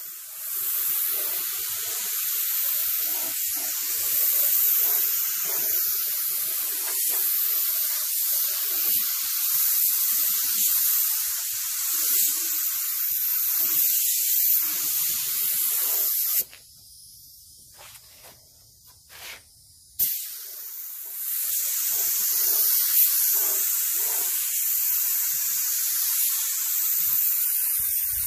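Gravity-feed paint spray gun hissing steadily as compressed air atomises paint onto a panel. It stops for a few seconds a little over halfway through, then starts again for another pass.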